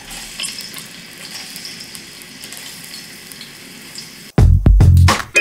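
Green chillies, ginger and garlic sizzling in hot olive oil, a steady low hiss with a few light crackles. Near the end, loud background music with a beat cuts in suddenly.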